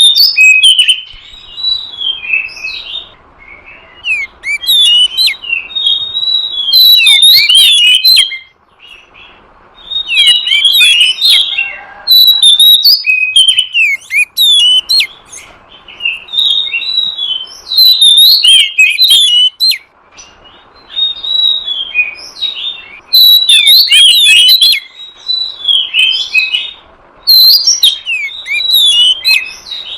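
Oriental magpie-robin (kacer) song played as a trapping lure: rapid, varied whistled phrases mixed with sharp chattering notes. It comes in loud bouts of a few seconds, broken by short lulls.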